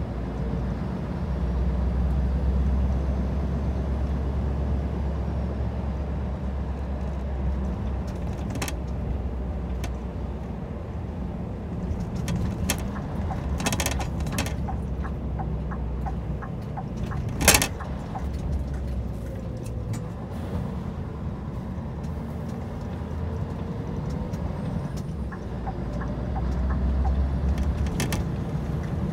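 Scania R 730's 16.4-litre V8 diesel running under way, heard from inside the truck's cab as a steady low drone that swells in the first seconds and again near the end. A few sharp clicks and knocks cut through it, the loudest a little past halfway.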